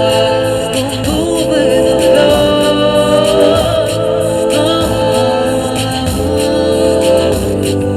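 Live band playing a song, with long held sung notes over the instruments.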